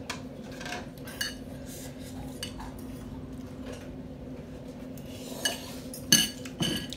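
A metal utensil scraping and clinking against a bowl as ramen noodles are stirred and lifted out, in scattered taps with a few louder ringing clinks near the end.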